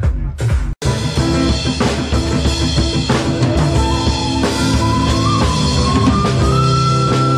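Background music: a drum beat that cuts off suddenly just under a second in, followed by a different piece with steady bass notes and a single high melody line that enters partway through.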